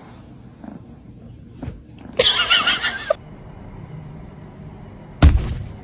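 A cat's drawn-out meow with a wavering pitch, lasting about a second, about two seconds in; a loud sudden noise near the end.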